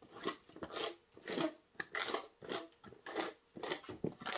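Cardboard box and paper packaging being handled by hand: a string of short scratchy rustles and scrapes, about two a second.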